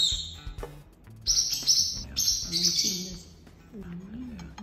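Small birds chirping in repeated short bursts, over faint background music with a steady low line.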